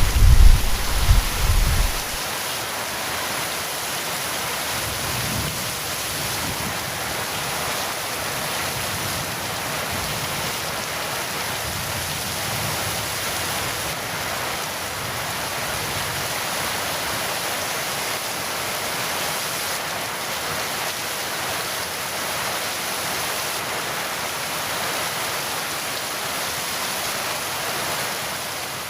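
Heavy steady rain, with the tail of a low thunder rumble dying away in the first two seconds; the rain fades out at the very end.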